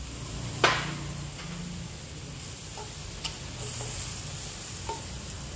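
Milk sauce with onions and garlic simmering and sizzling in a cast iron skillet, stirred with a metal spatula, with a few light clicks of the spatula. A single sharp knock about half a second in is the loudest sound.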